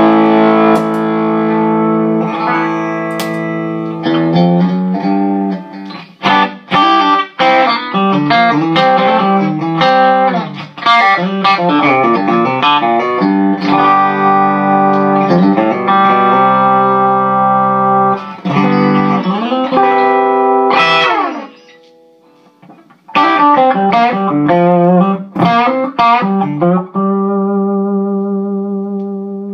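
Electric guitar with a Manlius 'Quiet Goat' hum-cancelling P90 pickup (Alnico 5 magnets) played through a tube amp: quick single-note lines and chords. There is a short break about 22 seconds in, and it ends on a held chord that wavers with vibrato.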